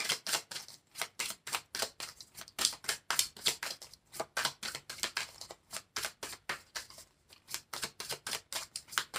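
Tarot deck being shuffled overhand in the hands: an irregular run of quick card slaps and flicks, several a second.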